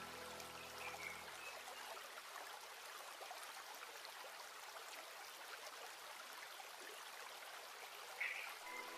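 Faint rustling and crinkling of fabric as a sewn pillow cover is handled and turned right side out, with soft background music fading out in the first second or two. A brief higher squeak near the end.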